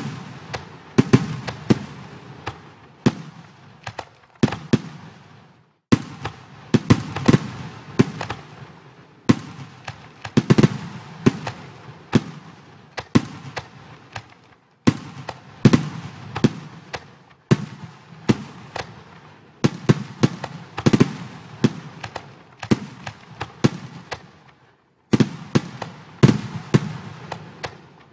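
Simulated fireworks sound effects: a run of sharp bangs and crackling bursts, often several a second, with fizzing tails. The sound drops out to silence for a moment about every nine to ten seconds.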